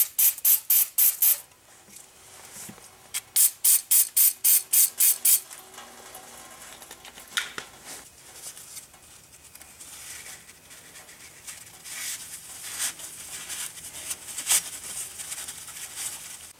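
Aerosol can of brake cleaner sprayed in rapid short bursts into a freshly honed brake wheel cylinder bore: a run of about six quick hisses, then about eight more a few seconds later. Quieter rubbing and handling noises follow.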